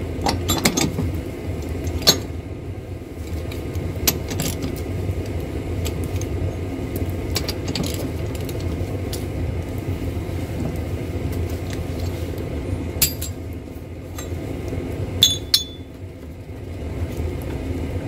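Scattered sharp metal clicks and clinks as a socket tool works a water heater's pressure-relief valve loose. The loudest two come close together near the end, one with a brief ring, over a steady low rumble.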